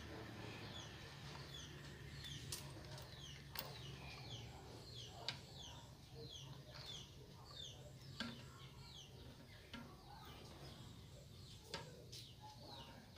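Faint, repeated bird chirping in short falling notes, two or three a second, over a low steady hum. A few sharp clicks stand out above it.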